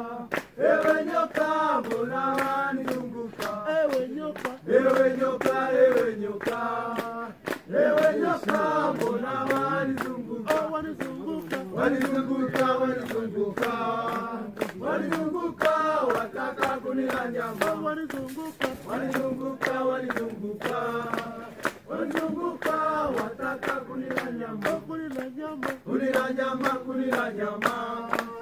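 A group of men singing a Swahili song together in a chanting style, with steady hand-clapping throughout.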